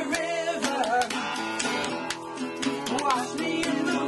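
Acoustic guitar being strummed, with a man singing along.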